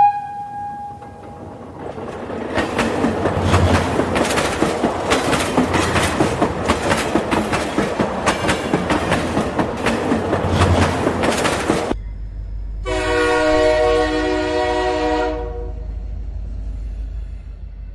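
Train sounds: a brief steady whistle tone at the start, then about ten seconds of rhythmic wheel clatter over rail joints. A horn blast about three seconds long follows.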